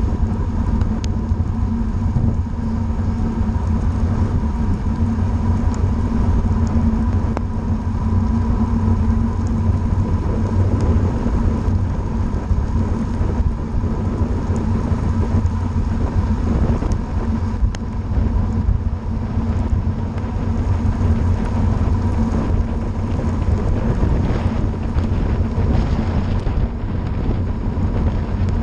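Wind buffeting the microphone of a bike-mounted camera with wet-road tyre hiss, as a bicycle descends a rain-soaked road at about 30 mph. There is a steady low rumble throughout.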